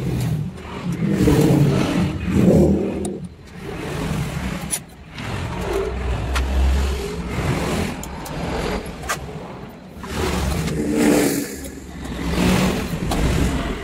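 Motor vehicle engines running in the background, swelling and fading several times, with a few light metallic clicks from engine parts being handled.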